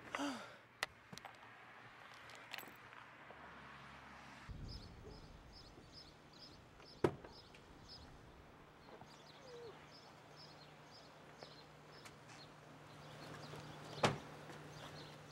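A car door shutting with a sharp thud about seven seconds in, and again with a louder thud near the end. Between the two, a faint, quick, repeated high chirping runs for a few seconds.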